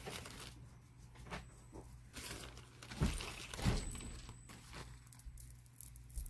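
Faint handling noise from bead strands and their plastic bags: light rustling, with two soft knocks about three seconds in.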